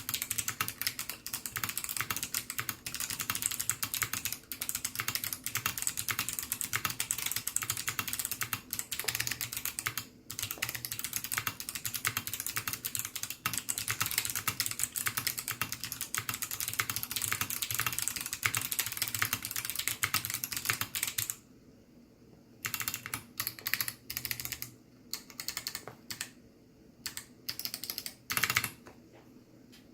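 Fast continuous typing on a ZZ96 mechanical keyboard with clicky Kailh Box Navy switches and PBT keycaps, each keystroke a sharp click. About two-thirds of the way through, the typing breaks into short scattered bursts with pauses between them.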